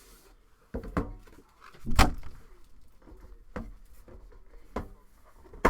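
A sports-card box being opened and handled on a table: a string of sharp knocks and clicks, about six in all, the loudest about two seconds in.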